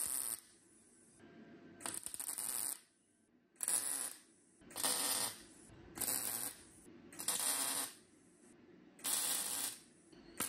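Welding arc laying tack welds on an exhaust J-pipe: about seven short bursts of arc noise, each under a second, with pauses of about a second between them.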